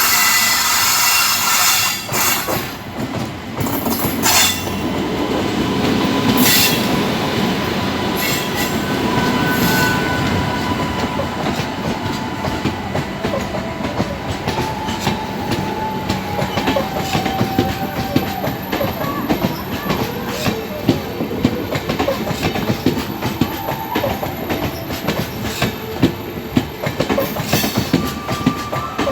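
Express train coaches rolling past, their wheels clattering over rail joints and points in a dense run of clicks, with thin wheel squeals. Louder noisy bursts come in the first few seconds.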